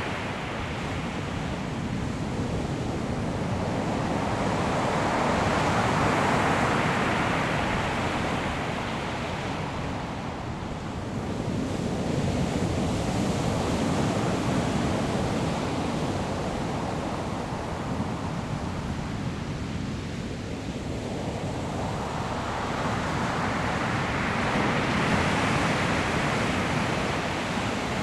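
Sea waves breaking on a pebble shore: a rushing surf noise that swells and ebbs about three times, once every nine seconds or so.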